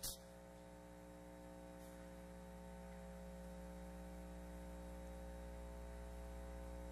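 Steady electrical mains hum from the auditorium's sound system, a stack of constant tones that slowly grows a little louder, with a single click at the very start.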